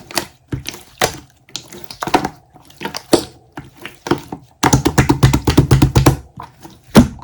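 Wet, sticky clicks and pops of slime being squeezed and pressed by hand. There is a dense, fast run of pops in the middle and one loud pop near the end.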